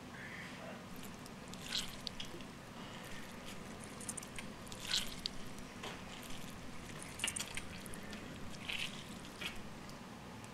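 Wet mouth sounds of licking and sucking on fingers: a few short slurping, smacking clicks over a low room hum.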